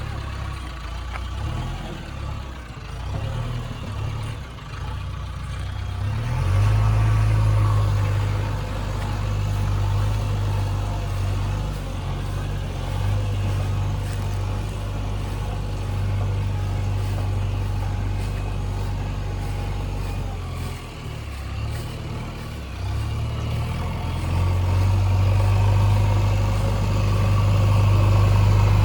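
Diesel engine of a JCB backhoe loader running, getting louder about six seconds in, easing off a little past twenty seconds, then picking up again near the end.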